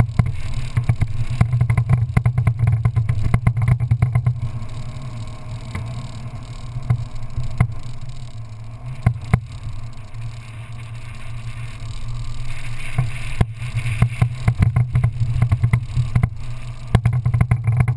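Off-road vehicle driving along a sand track, its engine running with a steady low drone. Frequent knocks and rattles are thickest in the first few seconds and again near the end, and quieter in the middle.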